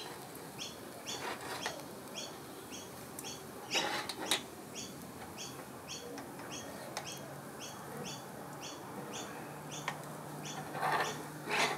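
A small bird calling with a steady series of short high chirps, about two or three a second, with a few sharp clinks of metal skewers being turned on a charcoal grill.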